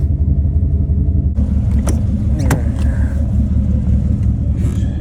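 Chevrolet Tahoe engine idling with a steady low rumble, with two sharp knocks about two seconds in.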